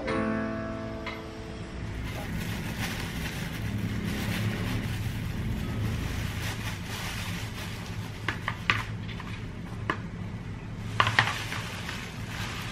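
Electronic keyboard notes die away in the first second or so, then a steady low hum runs under thin plastic bag handling, with a few sharp crinkles about eight seconds in and again near the end.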